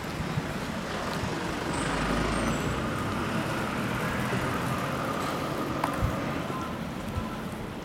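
Passing road-vehicle noise, a steady rumble that swells about two seconds in and eases off after about six seconds.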